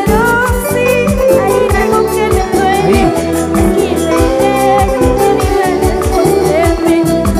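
Latin American dance band music with a steady, even beat and a melody running over it.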